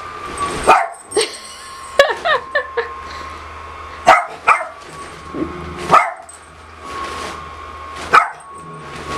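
Small dog barking in alarm at a person in an inflatable costume: about nine sharp barks spaced out, with a quick run of four yaps around two seconds in. Under the barks runs the steady hum of the costume's battery blower fan.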